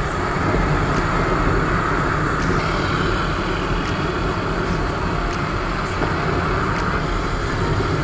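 Motorcycle riding along a road: steady engine and road noise with wind rushing over the microphone.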